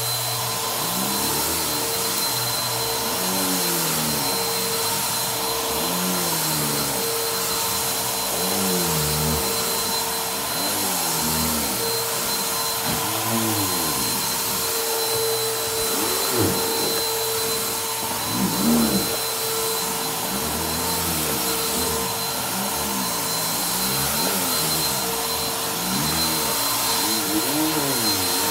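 Bagless upright vacuum cleaner running on a rug: a steady whine over a rushing airflow, with a lower tone that rises and falls about every two seconds.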